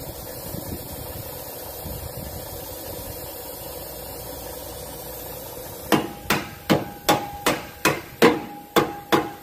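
A steady mechanical hum, then from about six seconds in a hammer striking the truck's leaf-spring bolt in quick, ringing metal-on-metal blows, about three a second. The bolt is being knocked to check that it is free and will come out of its bush.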